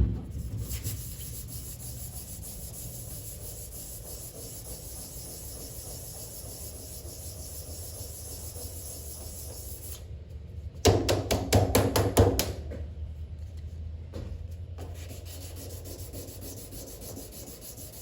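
400-grit sandpaper rubbed by hand over the steel roof of a truck, flatting spot putty and rusty edges with steady strokes. A second or so of quicker, louder strokes comes about two-thirds of the way through.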